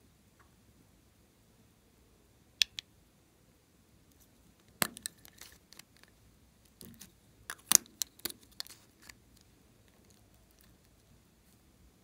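Sharp clicks, taps and light clinks of small plastic makeup tubes and caps being handled over a glass bowl: a single click a few seconds in, then a cluster of clicks and taps through the middle, the loudest a little past halfway, with quiet between.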